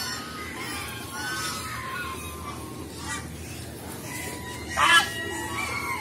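A large flock of domestic ducks calling, many short quacks and honking calls overlapping, with one much louder call about five seconds in.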